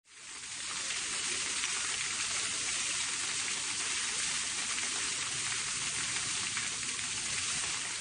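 Steady hiss of water streaming down a rock face in a small waterfall, fading in at the start.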